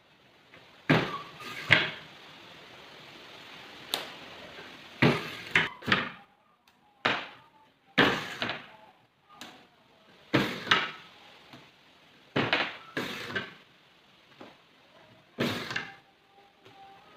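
Irregular series of sharp knocks and thumps, about fifteen, unevenly spaced, some with a brief ring after them, from woodworking work on a bench. A faint steady hiss sits under the first few seconds.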